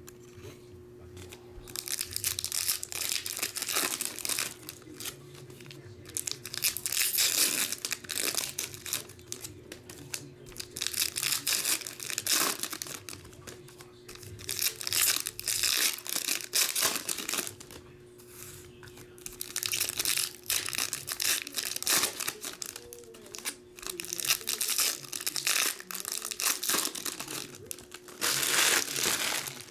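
Foil wrappers of 2015 Topps Finest baseball card packs being torn open and crinkled, in bursts every few seconds, over a faint steady hum.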